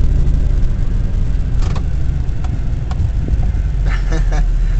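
Pickup truck driving off-road: a steady low engine and road rumble, with a few short sharp knocks over it.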